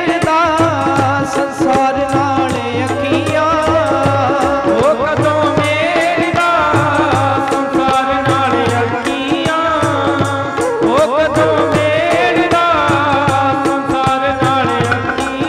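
Instrumental interlude of live Punjabi devotional music: harmonium carrying the melody over a steady tabla rhythm, with the chimta's jingling strikes keeping time.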